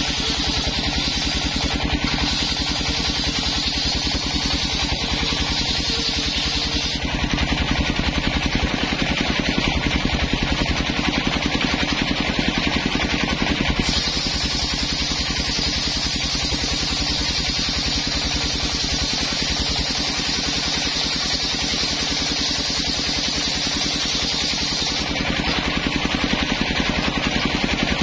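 Large engine-driven circular saw ripping coconut-wood boards: the engine runs steadily, and the high hiss of the blade cutting comes in two passes, for the first several seconds and again from about halfway until near the end, with the saw running free in between.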